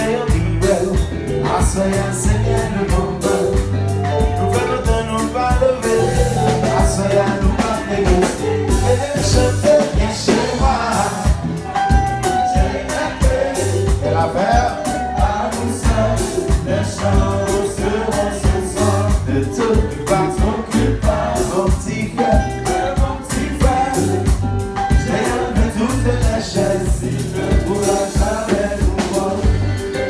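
Live band music: drum kit, acoustic guitar and keyboard playing a steady groove, with a man singing lead into a microphone.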